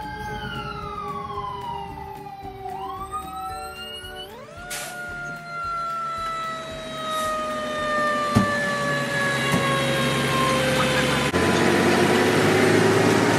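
Fire truck siren wailing, its pitch falling and rising; about four seconds in it winds up quickly, then winds slowly down. A louder steady rushing noise takes over near the end.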